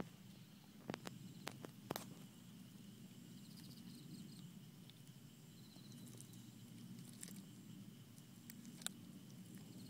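Stray cat chewing a raw bass: faint, scattered crunching clicks, a few in the first two seconds and a couple more near the end.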